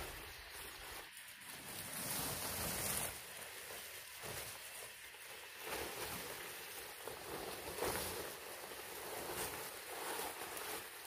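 Large fan-palm leaves rustling and swishing as they are lifted and laid over a bamboo roof frame, coming in uneven surges.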